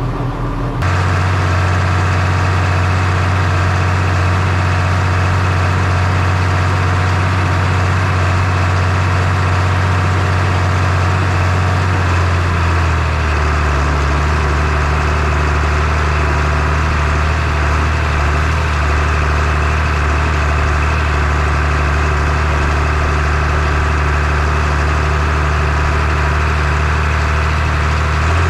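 Farm tractor engine running steadily while driving across the field. It gets louder about a second in and changes pitch about twelve seconds in.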